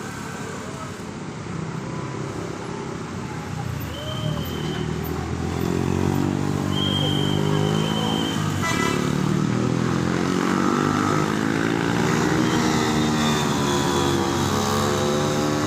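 A bus drawing near with its engine running, and a multi-tone telolet horn sounding a tune in stepped pitches. It grows louder over the first six seconds or so, then holds steady.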